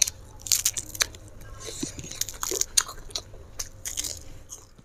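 Close-miked eating: wet chewing with many sharp, irregular crunches as a mouthful of fried fish and sambal is bitten and chewed.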